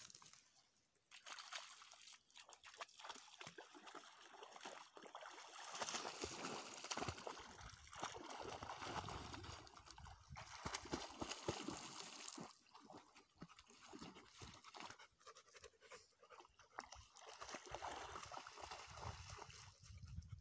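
Faint splashing and sloshing of water as a Belgian Malinois paddles through shallow water, with small irregular trickles and splashes.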